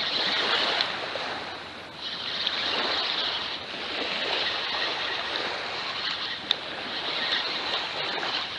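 Gentle surf washing onto a sandy beach, a steady hiss that swells and eases every second or two, with one short click about six and a half seconds in.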